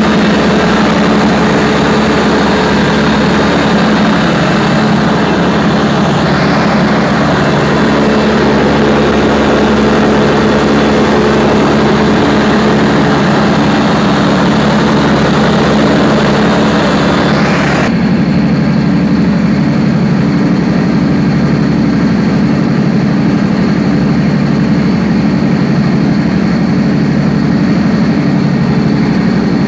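Perkins 4012 V12 diesel engine running steadily on its test run after a general overhaul, a loud, even, low hum. About eighteen seconds in, the higher hiss drops away abruptly, leaving the deep engine hum.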